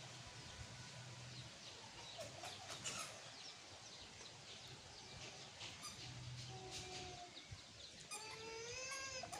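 Quiet outdoor background with a few faint bird chirps; about eight seconds in, a young child begins to cry, a rising wail that grows louder toward the end.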